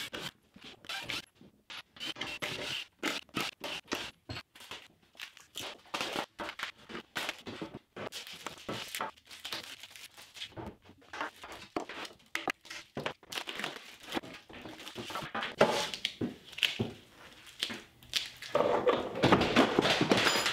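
Clamps and mold boards being taken off an epoxy-filled wood slab: a string of irregular knocks and clunks, with a longer scraping stretch near the end.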